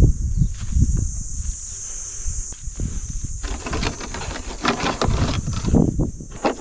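Bare feet stepping through dry grass, then leafy branches rustling and crackling as they are pushed aside from about three and a half seconds in.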